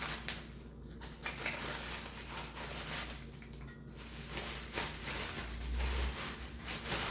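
Bubble wrap and clear plastic packaging crinkling and rustling in the hands as a kitchen part is unwrapped, with irregular scattered crackles.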